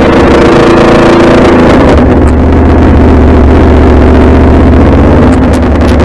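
Aprilia Tuono V4 motorcycle's V4 engine running at a steady, even note while cruising, with wind rush over the microphone.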